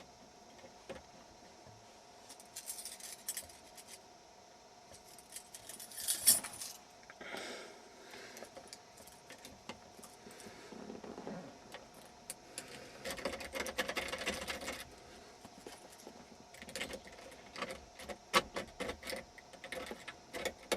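Jiggler keys and a tension tool worked in a car's ignition lock: intermittent metallic rattling, scraping and jingling of the key set, in short bursts with brief pauses, the longest burst a little past the middle and a run of small clicks near the end.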